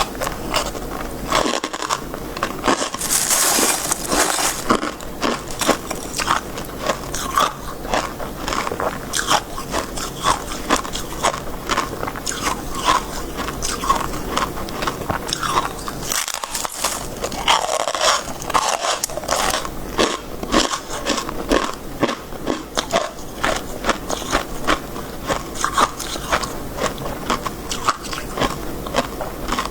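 Close-up crunching and chewing of crisp freezer frost and shaved ice, in quick irregular bites many times a second. About three seconds in there is a brighter hissing scrape.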